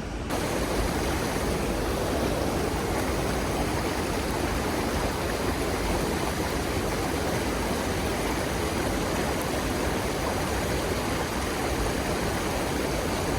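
Mountain stream water rushing in a steady, loud wash.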